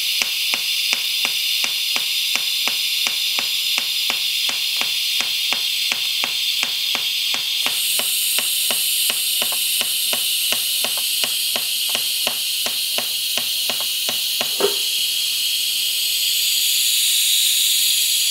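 TIG welding arc from a Unimig Razor 200 AC/DC in pulse mode, fusion-welding stainless steel pipe: a steady high hiss with a regular tick about four times a second from the pulsing current. The ticking stops about three-quarters of the way through while the hiss goes on, then fades near the end.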